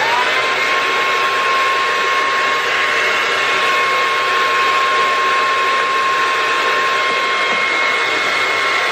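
Handheld hair dryer running on high: its motor whine climbs and settles to a steady high pitch within the first half second, then holds over an even rush of air.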